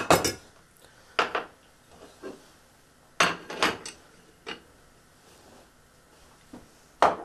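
Ceramic crockery knocking and clinking on a kitchen counter: a plate and small bowl are set down and tapped together in a handful of separate knocks, with a closer cluster about three to four seconds in as thawed peas are tipped from the bowl onto the plate.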